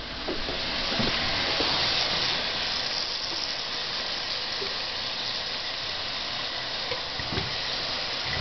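A steady hiss that swells over the first second or two and then holds level, with a few faint knocks.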